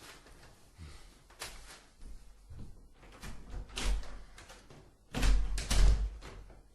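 Scattered knocks and thuds, ending in two heavy slamming thumps about five seconds in, the loudest sounds here.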